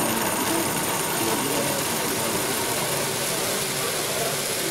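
Running Meccano model stationary engines: a steady mechanical whirring of the drive, flywheel and linkages.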